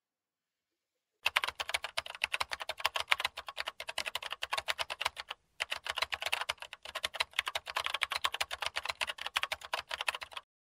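Typing sound effect: a rapid run of key clicks starting about a second in, breaking off briefly near the middle, then resuming and stopping just before the end.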